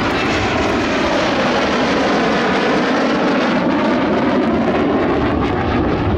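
Twin RB199 turbofan engines of a Panavia Tornado GR4 jet, a loud steady jet roar as the aircraft passes low and climbs away.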